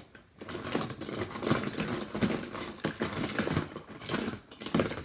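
Hands rummaging through a pile of plastic fidget spinners: a dense run of irregular clattering and rustling, with a brief pause near the end.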